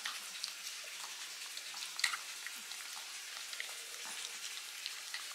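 Small dogs chewing and licking pieces of chicken gizzard: irregular soft wet clicks and smacks over a faint hiss, the most distinct about two seconds in.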